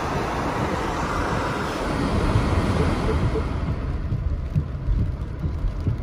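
Car tyres hissing on a rain-soaked road over a low rumble, heard from inside the moving car in heavy rain; the high hiss dies down about three and a half seconds in.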